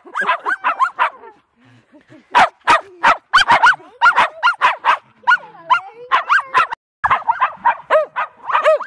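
Shetland sheepdogs barking in quick, high-pitched volleys of several barks a second, with a short lull about two seconds in.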